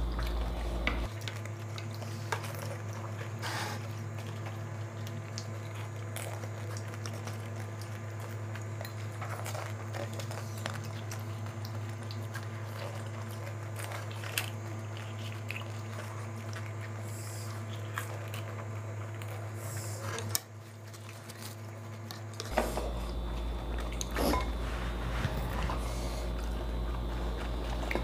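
Chopsticks clicking against puri shells, plates and water bowls, with crisp pani puri shells being bitten and chewed, in scattered small clicks and crunches over a steady low hum.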